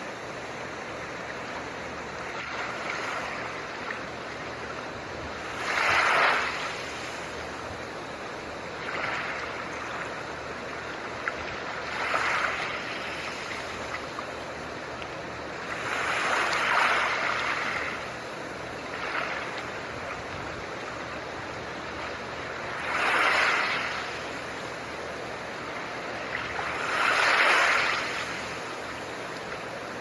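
Steady hiss of blue noise under soft ocean waves, which swell and wash in every four to six seconds.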